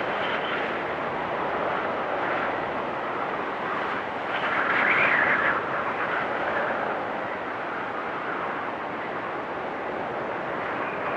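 Storm wind blowing hard and whistling, rising in a louder, higher-pitched gust about four to five seconds in before easing back.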